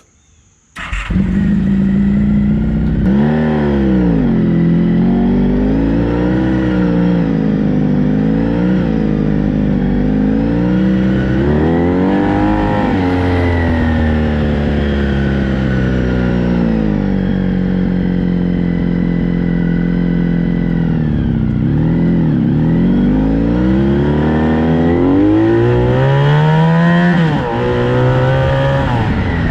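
Honda VF1000 V4 motorcycle engine in a homemade dune buggy, running loud and revving up and down repeatedly as the buggy is driven, with a steadier stretch midway. It cuts in abruptly about a second in.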